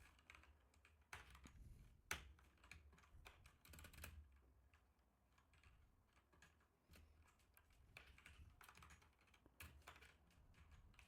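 Faint typing on a computer keyboard: irregular keystrokes in short runs, one louder key strike about two seconds in, and a brief lull past the middle.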